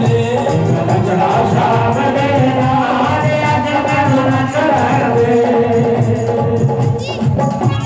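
Loud live devotional bhajan music to Shyam (Krishna), with singing over the instrumental backing.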